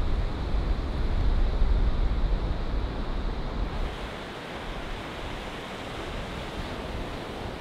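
Surf washing up a sandy beach in a steady wash of noise, with wind rumbling on the microphone in the first half; the wind rumble drops away about four seconds in, leaving the waves on their own.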